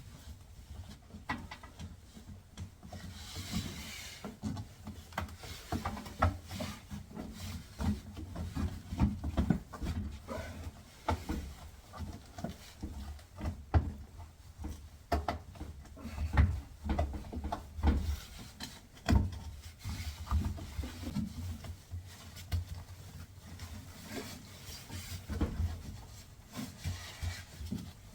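Hands working a rubber appliance door boot, slicked with liquid detergent, into its groove: irregular rubbing with many small knocks and low handling thumps.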